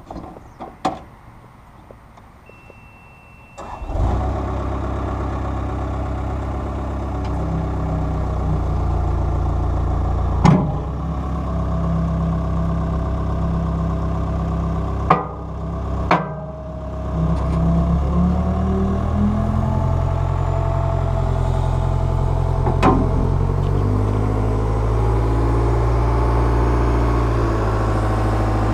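Skid steer loader's engine starting about four seconds in, after a few clicks and a short beep, then running with its speed stepping up and down several times. A few sharp knocks come over the engine.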